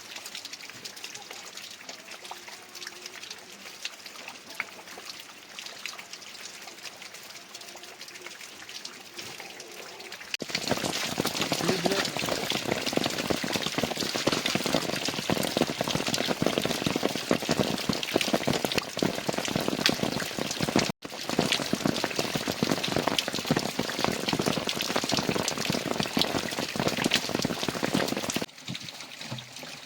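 Heavy rain falling and pattering densely on surfaces. It is moderate at first, jumps much louder about a third of the way in, drops out for an instant near the middle, and falls back to a softer patter near the end.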